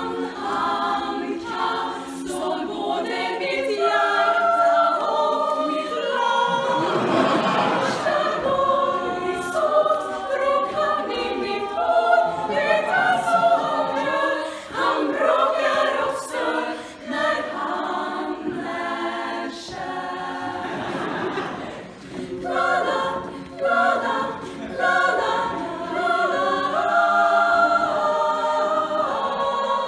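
Women's choir singing a cappella in Swedish, many voices together in harmony.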